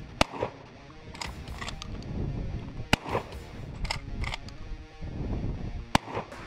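Pump-action shotgun firing three shots about three seconds apart, each a sharp crack, with a pair of lighter clicks about a second after each shot as the pump is worked.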